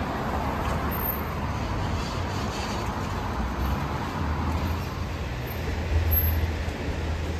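Street traffic on a wet road: the tyre hiss of a car passing swells and fades over the first few seconds, over a steady low rumble of traffic.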